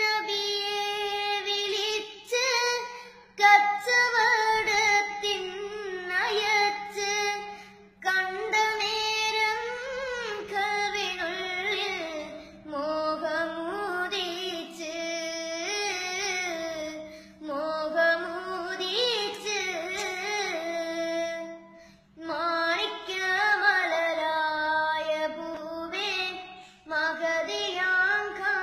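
A young boy singing solo without accompaniment, in long held notes with wavering, ornamented slides, pausing briefly for breath between phrases. A faint steady electrical hum sits underneath.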